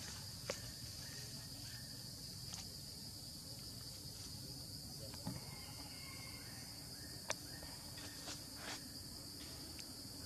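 Steady high-pitched insect chorus, with a few brief sharp clicks and snaps scattered through it.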